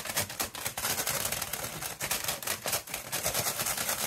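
A bag of plain potato crisps shaken hard by hand to coat them in seasoning powder: the crisps rattle and the bag rustles in a fast, continuous clatter.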